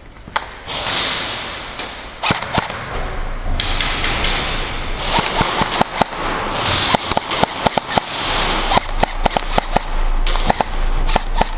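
Airsoft guns firing during close-quarters play: sharp snaps and cracks, some with a short ringing ping, irregular at first and coming quickly one after another over the last few seconds.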